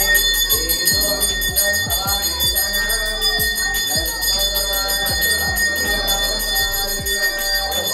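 A bell rung continuously over devotional aarti music, with singing voices and drumbeats.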